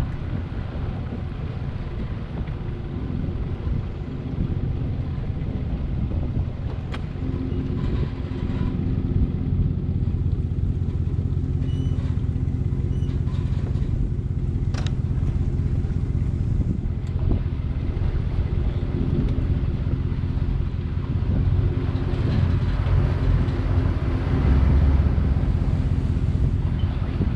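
An engine running steadily at low speed with a low, even hum, getting a little louder near the end, as the boat moves slowly through shallow water. There are a couple of faint knocks partway through.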